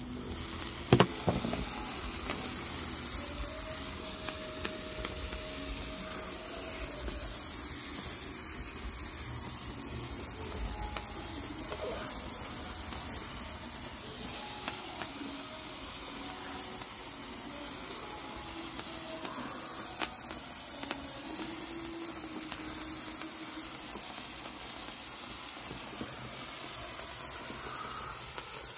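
Sparklers burning with a steady sizzling hiss, with one sharp pop about a second in.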